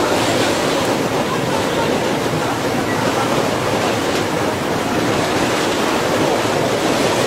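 Steady rushing of sea surf breaking against the bridge piers, mixed with the run of a diesel-hauled passenger train crossing the bridge.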